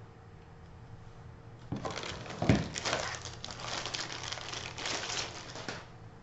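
Plastic bag crinkling and rustling as a desk phone base is lifted out of its cardboard box and unwrapped, starting after a quiet second and a half or so, with one louder knock about two and a half seconds in.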